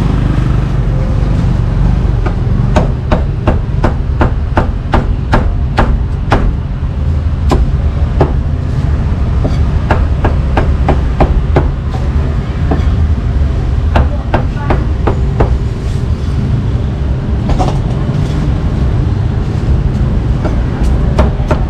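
Cleaver chopping pork on a chopping block in runs of quick strikes, about three a second, with pauses between the runs. A steady low rumble of street traffic runs beneath.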